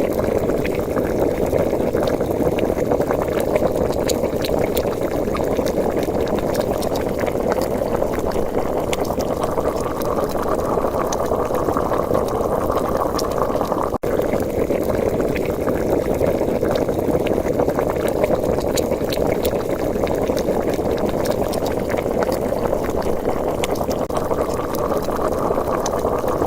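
A pot of stew simmering on the boil: thick bubbling with many small pops, steady throughout, with a momentary dip about halfway.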